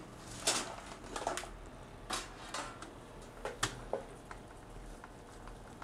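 A series of light clicks and taps from small hard parts being handled and set down, irregular, about seven in the first four seconds.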